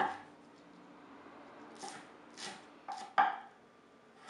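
Chef's knife chopping through scallions and then radish on a wooden cutting board. One chop lands right at the start, then about five more irregular chops follow from about two seconds in.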